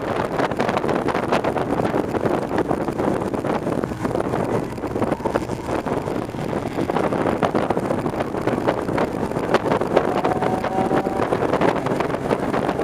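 Engine and road noise inside the cabin of a 660 cc kei race car at speed on a circuit: a dense, steady drone with many small ticks and rattles through it.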